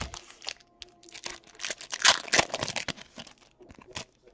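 Packaging of a trading-card hobby box being torn open and crinkled by hand, in a run of irregular rips and rustles that is loudest about two seconds in.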